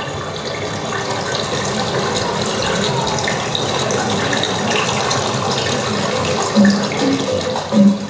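Rushing, flowing river water, a recorded sound effect played over theatre loudspeakers. A couple of low beats come in near the end, as music with percussion starts.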